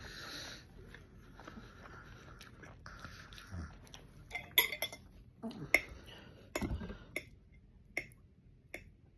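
Handling noise close to the microphone: a scattered run of about seven sharp clicks and knocks, starting about four seconds in, after a faint hiss.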